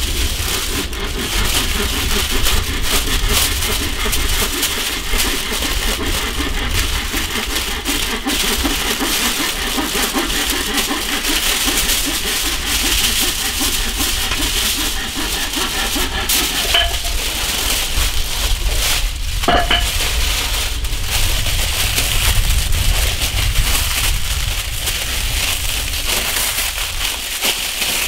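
Aluminium foil crinkling and rustling as it is unrolled and pressed and folded by hand around a banana-leaf-wrapped leg of lamb, a continuous run of small crackles.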